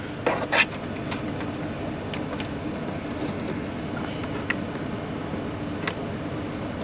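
A steady low hum with a few small clicks and knocks as a cable plug is handled and pushed into the outlet of a Bluetti AC180 portable power station.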